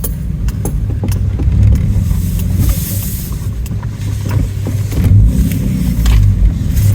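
Pickup truck running: a steady low rumble with scattered light clicks and knocks.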